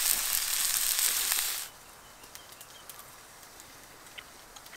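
Brook trout frying in a pan over a campfire, a steady hiss of sizzling that cuts off sharply a little under two seconds in. After that, faint outdoor quiet with a few small clicks.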